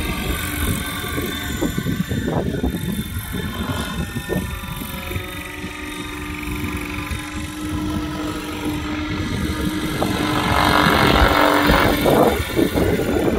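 UH-1 Huey helicopter flying past, its rotor and engine running with a steady hum underneath. It grows louder and fuller about ten seconds in as it comes closer.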